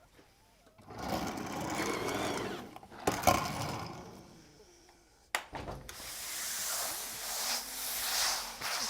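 Roller blind fabric being worked on the cutting table: two stretches of scraping, rustling noise, the second brighter, with a sharp click about three seconds in and a sudden sharp knock about five seconds in.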